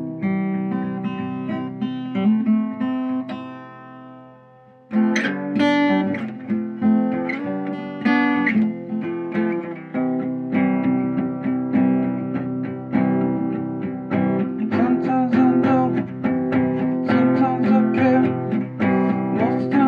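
Acoustic guitar music with no singing. A chord rings out and fades away over about five seconds, then the guitar comes back in with steady strumming that carries on.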